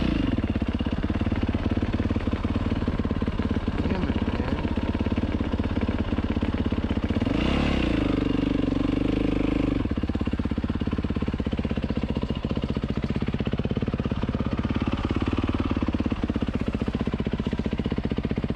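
Dirt bike engine running as the bike is ridden along a trail, with the revs climbing about seven seconds in, held briefly, then easing off near the ten-second mark.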